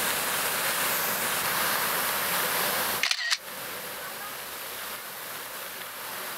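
Steady rush of falling water. About three seconds in it breaks off with a brief click, and a quieter, even splashing of water runs on after it.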